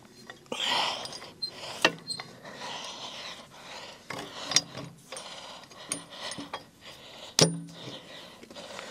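Irregular metal clinks, knocks and rubbing as parts of a portable band sawmill are handled and set to hold a log. The loudest is a sharp clank near the end that rings briefly.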